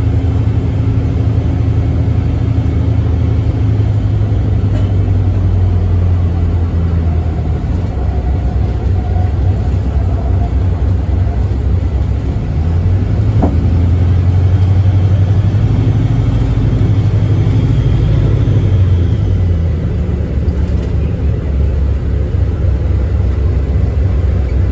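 Airport apron shuttle bus running under way, heard from inside the passenger cabin as a steady low rumble that grows louder for a few seconds around the middle. A single sharp click falls about halfway through.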